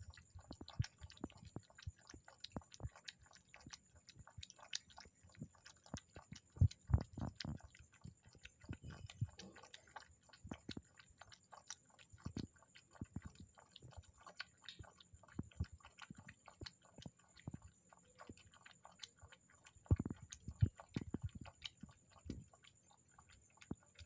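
A puppy lapping milk from a metal basin: a quick, irregular run of small clicks, several a second, with a few louder ones now and then.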